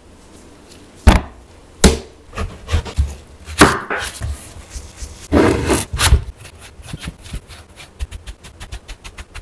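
A chef's knife cuts a watermelon on a wooden cutting board. There are a few loud, sharp knocks and crunching cuts through the rind. Near the end comes a fast run of light chopping taps on the board.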